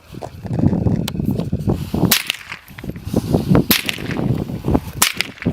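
Three loud gunshots about a second and a half apart, a fainter crack about a second in, fired at targets during a rifle-and-pistol shooting drill.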